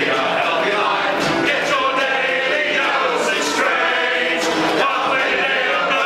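A group of men singing together in chorus, with acoustic guitar accompaniment.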